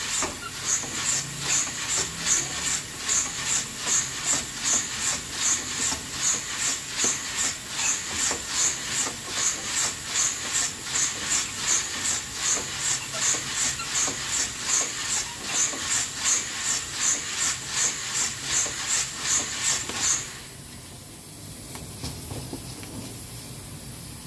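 Coffee beans roasting in an old coffee roaster on a wood stove, swishing and hissing in an even rhythm of about three strokes a second. The rhythm stops about 20 seconds in, leaving a quieter steady hiss.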